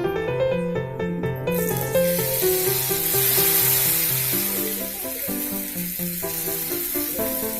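Food sizzling in hot oil in a pan, starting suddenly about a second and a half in and fading away near the end, under piano background music.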